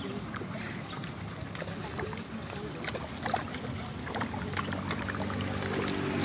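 Many fish splashing and slurping at the water surface as they snatch scattered feed, with lots of small sharp plops and ticks. A low steady hum runs underneath and grows louder near the end.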